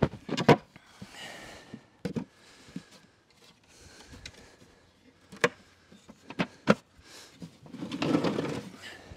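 Wooden clunks and knocks as the sections of a portable wooden jump ramp are handled and fitted together: a few sharp knocks spread out, with a longer, rougher sound near the end.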